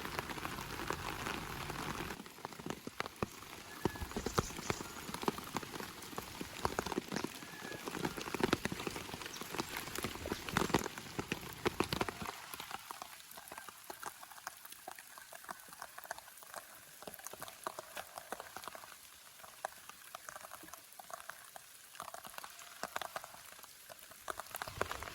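Rain falling, with many separate drops ticking on surfaces; it grows quieter and thinner after about twelve seconds.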